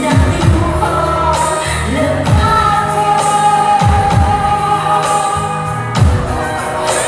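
Upbeat pop dance music with a singing voice and a steady beat, deep bass notes sliding downward every couple of seconds.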